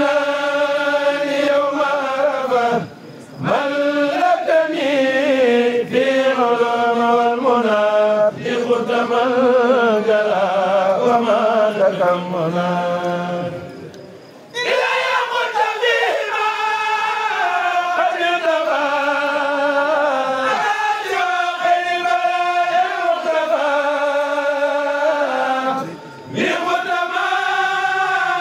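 A kourel of men chanting a Mouride khassida together, unaccompanied and amplified, in long held melodic lines. The singing pauses briefly for breath about three seconds in, again around the middle, and once near the end.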